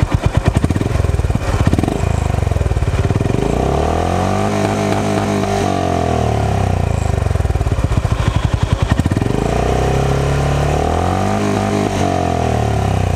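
Honda H'ness CB350's air-cooled single-cylinder engine revved hard in neutral on its stand: the pitch climbs to high RPM, holds, drops back toward idle, then climbs again in a second rev and falls back near the end.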